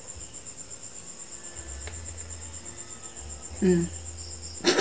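A steady, rapidly pulsing high-pitched insect trill, with a short hum from a woman's voice near the end.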